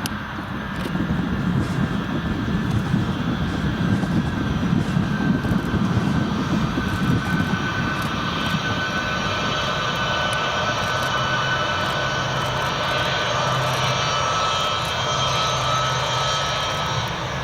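Boeing C-17 Globemaster's four Pratt & Whitney F117 turbofan jet engines running as the aircraft lands and rolls out. A rough, loud rumble fills the first half, then settles into a steadier jet whine.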